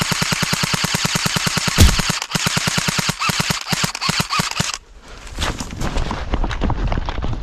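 Airsoft rifle firing long full-auto bursts, a fast even rattle of about fifteen shots a second, with a brief break about two seconds in, stopping near five seconds. Irregular knocking and rustling follow.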